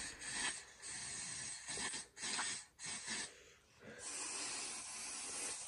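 Aerosol hairspray hissing from the can in several short spurts, then one longer spray near the end, as it is sprayed onto chilled mouthwash.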